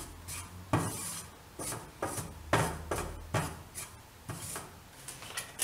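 Wooden spatula scraping and stirring gram flour around a stainless steel frying pan in repeated short strokes, as the flour is roasted until brown.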